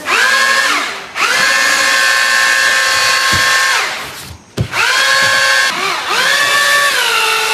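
Handheld electric drill-type paddle mixer, the kind used for mixing cement, running in four bursts of a second or two each, its motor whine rising as it is triggered and falling as it is released. It is stirring sweet potato mash.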